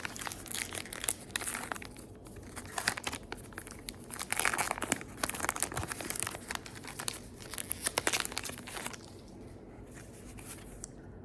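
Wrapper of a trading card pack being torn open and crinkled, a run of crackling rips and crinkles that dies down near the end.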